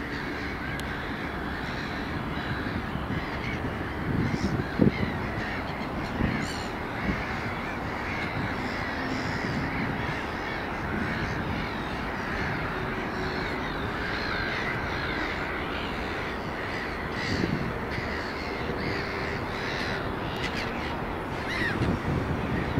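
Crows cawing repeatedly over the steady running noise of a train passing beyond the bushes, with a few brief louder knocks along the way.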